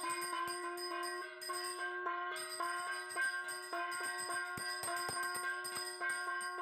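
Metal hand bell rung rapidly and continuously in even strokes, several a second, with a steady ringing tone, as a ritual bell during a fire and lamp offering.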